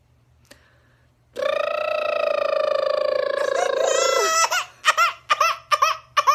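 Young baby crying: one long steady wail starting about a second and a half in, then a quick run of short sobbing cries.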